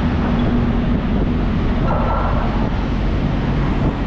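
Moving vehicle's engine and road noise, a steady dense low rumble, with an engine hum that fades about a second in.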